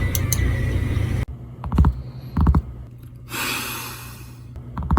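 A steady low rumble that cuts off about a second in, then knocking on a door in short rapid clusters: two bursts, a brief hiss, and two more bursts near the end.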